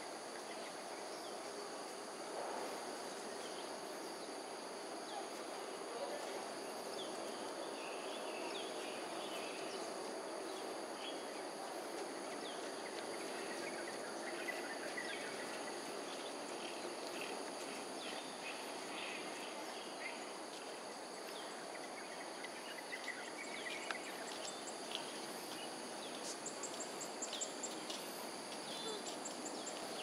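Outdoor ambience: a steady background hum with a continuous high insect drone over it. Short high chirps come and go through the middle and again near the end.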